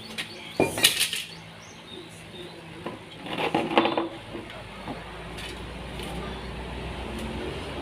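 Hard objects clattering and knocking as they are handled and set down, in two short bursts: one about half a second in and a longer one around three to four seconds in, over a steady low hum.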